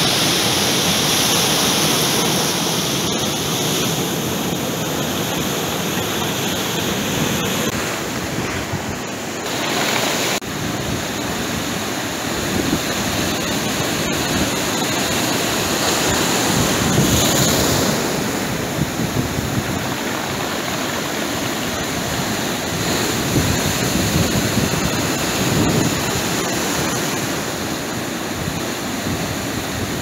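Rough sea surf breaking and washing up a pebble beach: a continuous rush of water that swells and eases with each wave.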